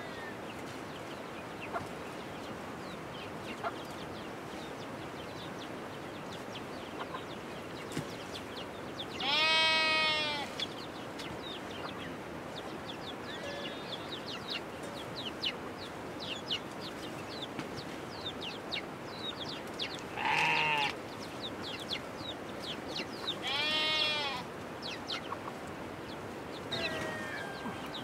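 Livestock bleating three times, each bleat rising and then falling in pitch: the first about nine seconds in, the others near twenty and twenty-four seconds. Short high chirps come and go throughout over a steady background hiss.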